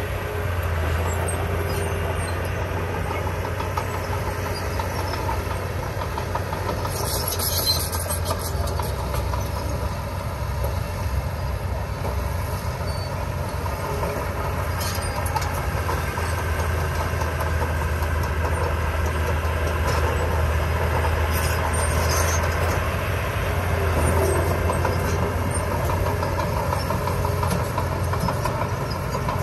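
Diesel engine of heavy earthmoving machinery running steadily. Brief metallic clatter comes twice: about a quarter of the way in and again about three quarters through.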